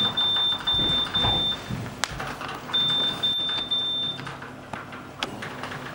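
Intertec Superbrain QD computer beeping the sound effects of a Space Invaders game: a high, steady beep tone in two runs of short beeps, with a gap of about a second between them. Two sharp clicks, one about two seconds in and one near the end.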